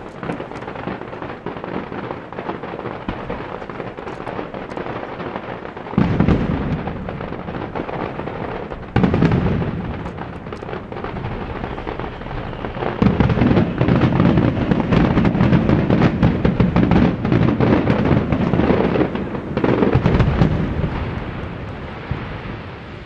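Starmine fireworks barrage with dense crackling and popping. Heavy booms come in suddenly about six and nine seconds in. A sustained, heavier volley builds from about thirteen seconds and eases off near the end.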